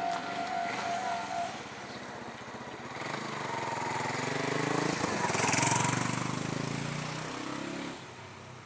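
A steady tone from a passing train dies away in the first second and a half. Then a motor vehicle's engine rises and falls as it passes, loudest a little past the middle, and fades near the end.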